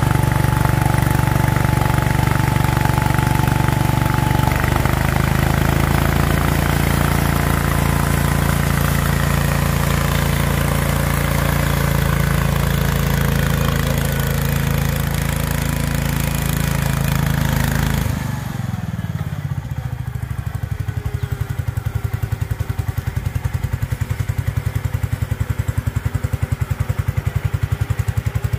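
Cub Cadet garden tractor engine running steadily under throttle as the tractor is driven. About two-thirds of the way in, the engine note falls and it settles into slower, lower running with an even pulsing beat.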